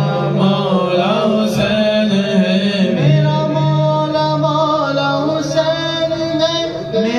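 Two men singing a manqabat (Urdu devotional poem) into microphones, taking turns on the melodic lines over a steady low note held beneath them.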